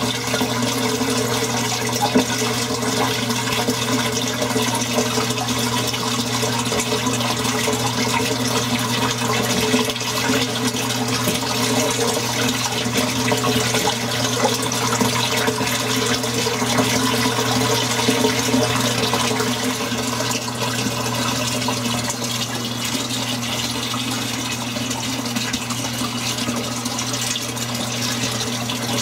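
Aquarium water pump pushing water out through a hose nozzle: a steady rush of water and bubbling over a constant low hum. A single short knock about two seconds in.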